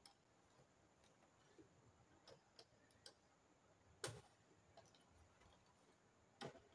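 Faint scattered clicks and taps of a screwdriver and gloved hands working at the terminal screws of a consumer unit, the sharpest about four seconds in.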